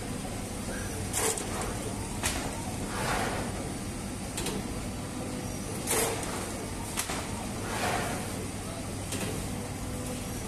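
Dough-sheeting machine and conveyor of a mechanized sangak bread line running with a steady hum and low drone. Irregular metallic clicks and clacks come roughly once a second.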